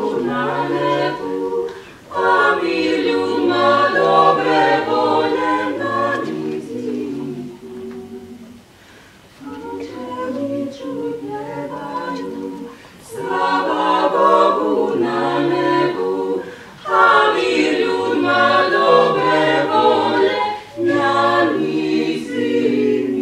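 Small mixed vocal ensemble of five voices, four women and a man, singing a cappella in close harmony. The singing comes in phrases with brief breaks for breath, and grows softer for a few seconds about a third of the way in before returning to full voice.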